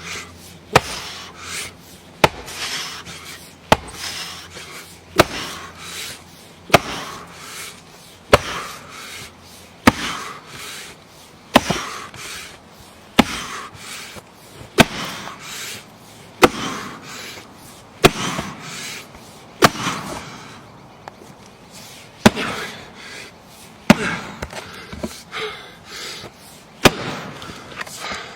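Axe chopping into a large log over and over, about eighteen sharp blows evenly spaced, roughly one every second and a half.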